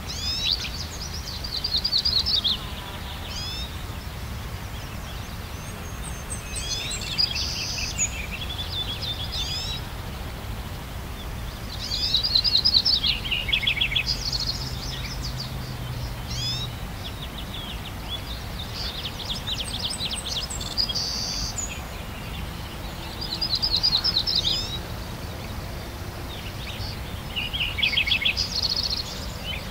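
Songbirds singing in repeated phrases of rapid high notes, each about two to three seconds long and recurring every few seconds, over a steady low background rumble.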